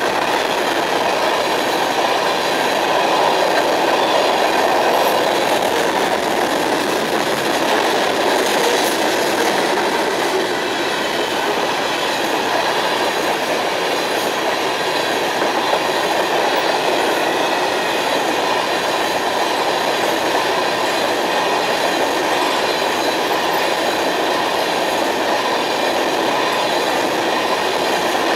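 Freight train cars, a covered hopper and then a long string of tank cars, rolling past at speed: a steady, loud noise of steel wheels running on the rails that does not let up.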